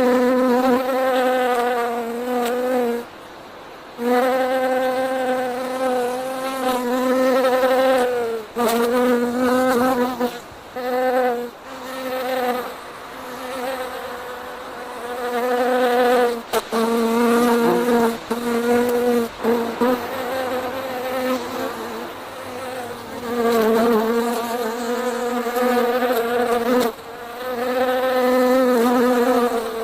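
A bee buzzing: a steady low hum with a slightly wavering pitch that breaks off briefly several times and starts again.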